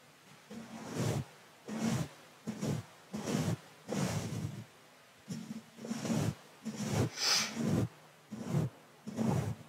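A soft brush stroked repeatedly across a microphone's mesh grille, close to the capsule: a steady run of separate swishes, roughly one or two a second.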